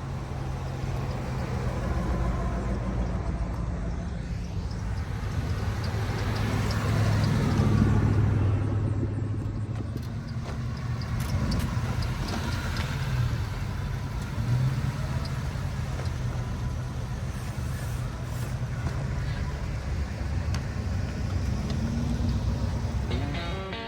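A motor vehicle's engine running with a steady low drone, growing to its loudest about eight seconds in.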